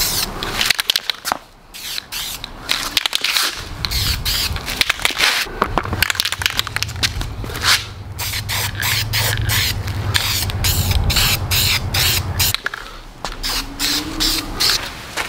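Aerosol spray paint can hissing in many short bursts. A low steady hum runs underneath from about four seconds in until near the end.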